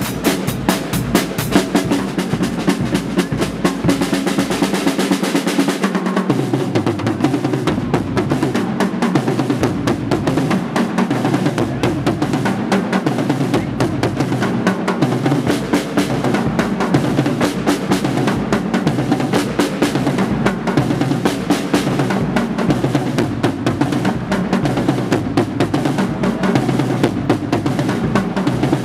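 Guggenmusik carnival band playing live: a drum kit with snare, bass drum and cymbals keeps a steady beat under brass and reeds, including sousaphone, trumpets and saxophones.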